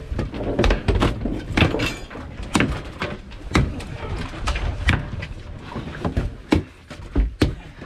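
About a dozen heavy, irregular thumps and slaps on a boat deck as a large Pacific halibut is subdued: the fish thrashing against the deck and being struck with a wooden club.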